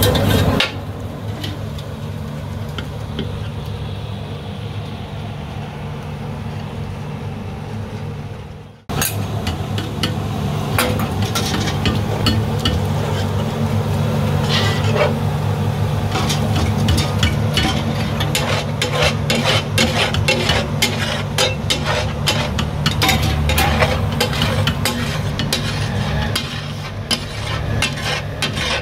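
A metal spatula clatters and scrapes on a flat iron griddle as pav bhaji is stirred and fried, with frying sizzle and a steady low hum underneath. The sound cuts out for a moment about nine seconds in, and after that the strokes come thick and fast.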